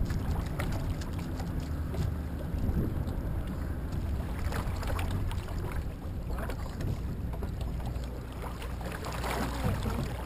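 Water splashing and lapping against a single-scull rowing shell as it is turned with the oars, in irregular small splashes, over a steady rumble of wind on the microphone.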